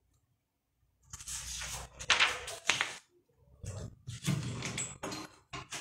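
Handling noise from a vocal microphone being gripped and pulled out of its stand clip: irregular rubbing, scraping and bumps on the mic, starting about a second in.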